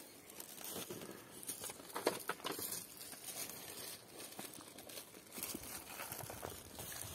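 Faint rustling and crinkling of handling, with scattered small clicks: plastic bags and dry leaves being moved about on rocky ground.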